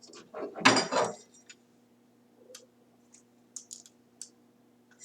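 A few small, sharp plastic clicks and taps, spaced irregularly, as the plastic parts of a control-panel service port are handled and pressed into their frame, over a faint steady electrical hum.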